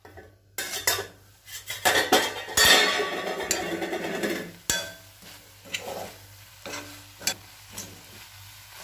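A steel plate lid clinks as it slides off a cast-iron kadai, then a metal spatula stirs and scrapes pieces of brinjal in thick masala around the pan, with clinks of metal on iron and a light sizzle. The stirring is loudest about three seconds in, then eases to scattered clinks.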